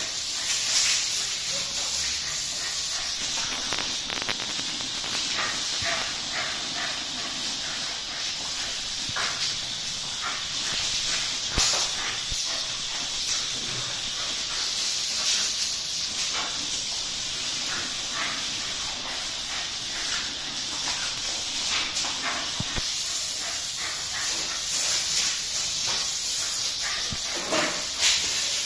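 Steady hiss of water spraying from a garden hose, with many short splashes and clicks scattered through it as dogs bite at the stream.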